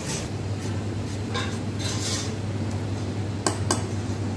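A small serrated knife scraping and carving out the inside of a peeled raw potato: a few short, separate scraping strokes over a steady low hum.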